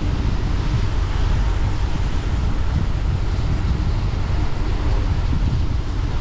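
A car driving along a road, with steady road noise and wind buffeting the camera's microphone in a low, continuous rumble.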